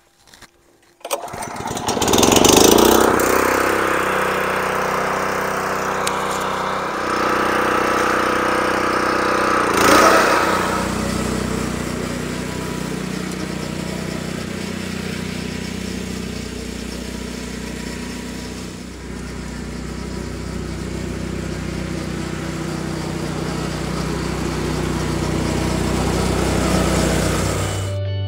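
Honda GX120 single-cylinder four-stroke engine on a California Trimmer reel mower starting about a second in, revving up as it catches, then running steadily with small rises and falls in level.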